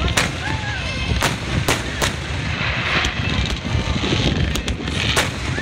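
Fireworks display: aerial shells bursting in about half a dozen sharp bangs at irregular intervals, over a continuous low rumble.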